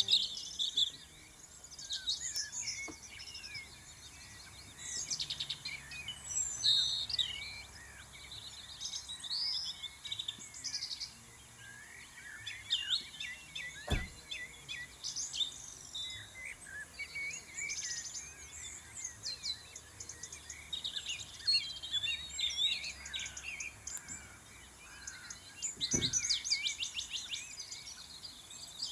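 Several songbirds singing and chirping, with quick overlapping high calls and trills throughout. Two short clicks are heard, one about halfway and one near the end.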